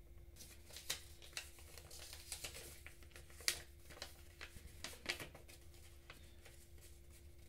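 A folded sheet of paper being unfolded and smoothed out by hand: a run of irregular crinkles and crackles lasting about five seconds, with one sharper crackle about halfway through.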